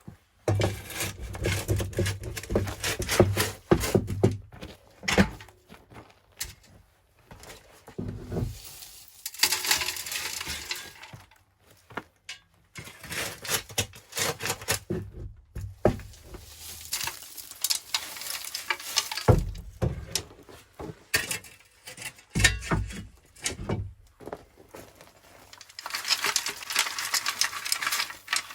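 Irregular clinks, knocks and scraping of hard objects being handled, in bursts of a few seconds with short pauses between them.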